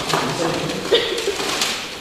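Muffled voices in the room, with a few light clicks and knocks of plastic CD cases being handled during a search for an album.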